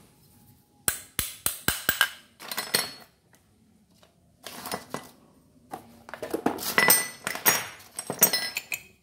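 Metal parts and tools clinking and clattering as they are handled on a workbench: a quick run of sharp clicks about a second in, then several bursts of rattling, the loudest near the end.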